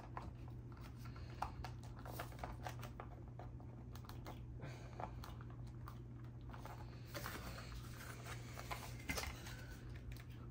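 Small plastic clicks, taps and some rustling from action figures and their weapons being handled and pressed onto a sculpted plastic display base, over a faint steady low hum.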